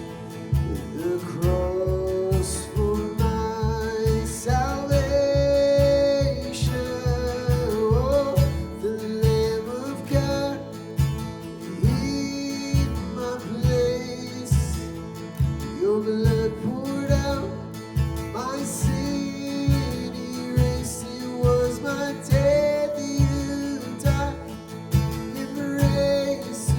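Worship band playing an instrumental passage of a song: acoustic guitar over a steady beat, with a melody line on top.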